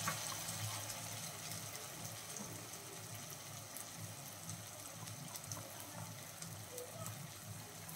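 Onion-tomato masala sizzling softly in a frying pan: a steady, quiet hiss with a few faint clicks.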